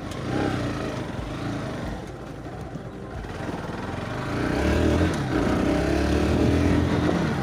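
Motorcycle engine running as the bike is ridden, getting louder from about halfway through as it picks up speed.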